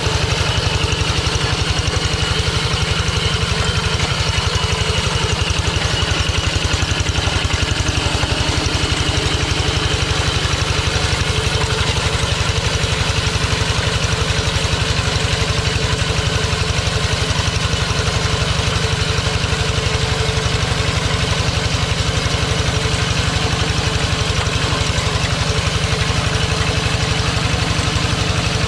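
Single-cylinder diesel engine of a Kubota two-wheel hand tractor running steadily with a fast, even chugging beat, pulling a plow through wet paddy mud.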